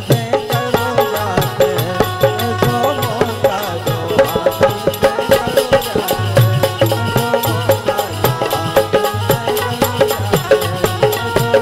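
Instrumental interlude of Indian folk music: a harmonium melody over tabla and dholak playing a steady beat, with jingling percussion.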